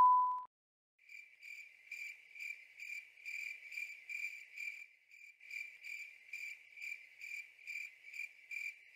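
A cricket chirping in a steady, even rhythm, about two and a half short high chirps a second, starting about a second in. At the very start the steady beep of a colour-bars test tone fades out.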